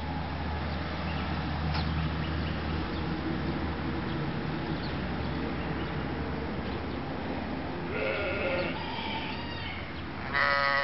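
A steady low outdoor rumble, with a softer pitched call about eight seconds in and a short, loud bleat just before the end.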